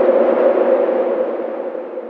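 Blizzard wind howling: a noisy rush with a steady hollow tone, fading away from about half a second in.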